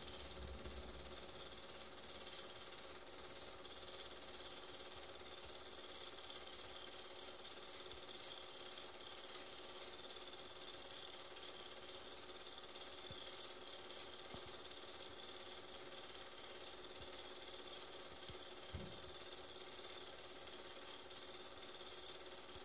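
Cine film projector running: a steady, fast mechanical clatter with a constant hum underneath.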